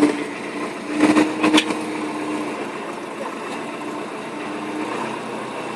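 A motor or engine running steadily, with a couple of short knocks about a second in.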